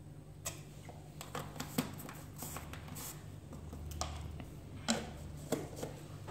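Scattered light clicks and taps from a metal spoon, a plastic seasoning jar and its cap being handled over a stainless steel pot, over a steady low hum.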